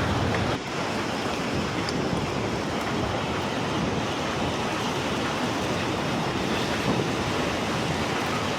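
Steady rushing noise of fast-flowing floodwater, mixed with wind on the microphone.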